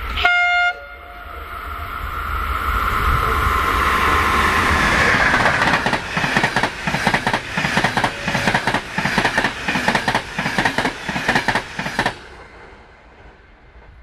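Passenger train passing at speed close by: a short horn blast just after the start, then the train's noise swelling as it approaches, then a rapid clickety-clack of coach wheels over the rail joints. The sound drops off suddenly near the end and fades.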